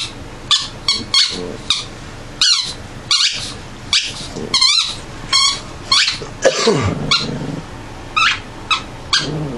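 Dogs playing tug-of-war over a cloth rag, giving a rapid string of short, high-pitched yips and whines. About seven seconds in there is a lower call that slides down in pitch.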